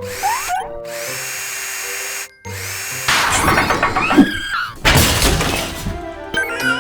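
Cartoon soundtrack music layered with sound effects: a couple of rising whistle-like glides near the start, then a steady noisy stretch and a busier clattering passage with a crash about five seconds in.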